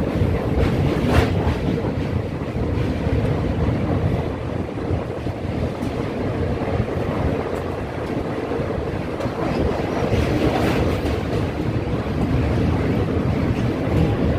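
Passenger train running over a steel truss rail bridge, a steady rumble with wind on the microphone.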